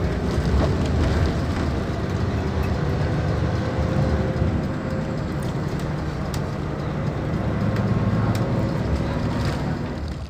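A Mercedes-Benz-engined bus running at a steady pace: a continuous low engine drone mixed with road noise, with a few light rattles and clicks.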